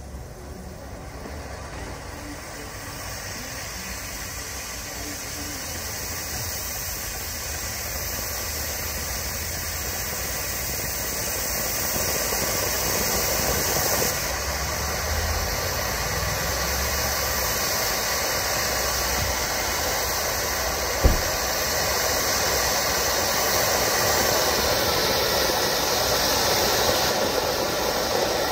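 Swiss Vulkan ground fountain firework spraying sparks with a steady rushing hiss that grows louder as the fountain builds. A single sharp bang cuts through about two-thirds of the way in.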